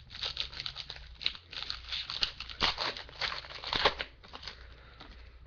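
A baseball card pack's wrapper being torn open and crinkled, irregular crackly rustling that thins out after about four and a half seconds.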